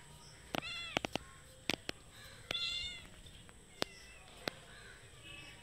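Kitten meowing, high-pitched: two clear meows about half a second and two and a half seconds in, fainter ones near the end, with a few sharp clicks among them.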